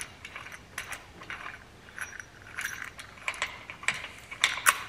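Light metallic clicks and clinks from a harmonic balancer installer tool being worked on the crankshaft snout of an LS engine, with a quick cluster of sharper clicks near the end.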